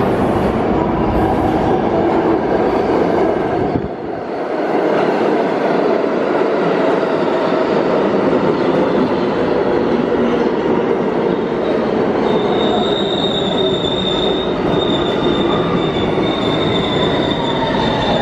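New York City subway train pulling into an underground station: a loud steady rumble of the cars rolling past the platform. A high steady squeal joins about two-thirds of the way through, and a falling whine comes in near the end as the train slows.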